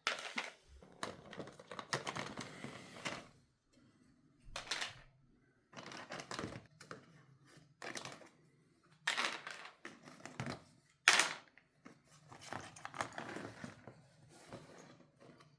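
Toy packaging being handled and opened: irregular bursts of rustling and crinkling, with a sharp snap about eleven seconds in.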